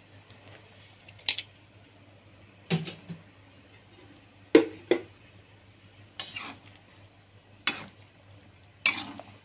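A metal spatula clanking and scraping against an aluminium wok as fish pieces are put into boiling soup: about seven sharp knocks at uneven intervals, the loudest about halfway through.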